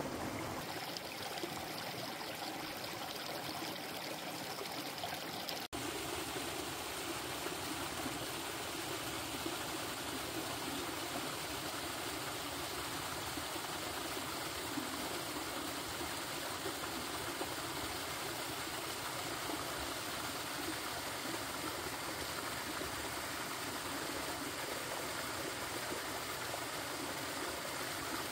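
A mountain stream flows and splashes over rocks in a small cascade, a steady rush of water. About six seconds in there is a brief dropout, and after it the splashing is fuller.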